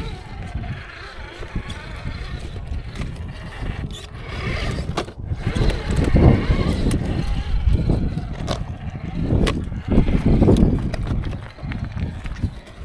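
Electric RC rock crawler driving in surges, its motor and gears whirring as the tyres scrabble on rock, with scattered knocks and clicks of the chassis and wheels against the stone.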